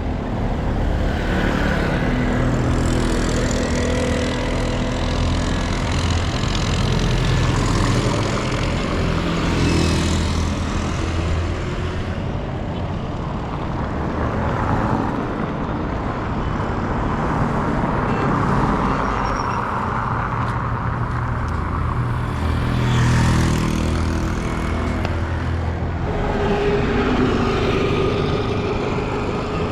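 Street traffic: the engines of cars and trucks running steadily, with vehicles passing close by a few times.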